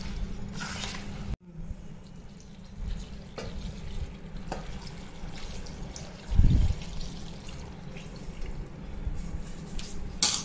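Water poured onto dried tamarind in an aluminium pot, then hands swishing and rubbing the tamarind in the water to wash out grit and dirt. A single dull thump sounds about halfway through, over a low steady hum.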